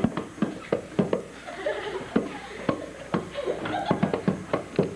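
A run of sharp knocks, about two or three a second and unevenly spaced, with faint voices between them.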